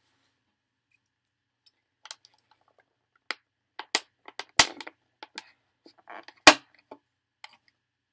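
Thin clear plastic clamshell food container being handled and opened: a run of sharp plastic clicks and crackles, the loudest snaps about four seconds in and again near six and a half seconds.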